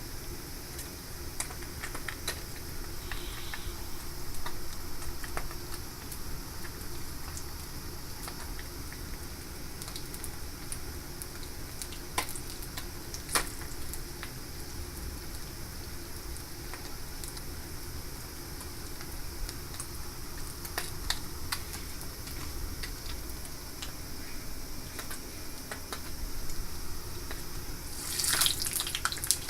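Kitchen work: scattered light clicks and knocks of utensils over a steady hiss, then a water tap running briefly near the end.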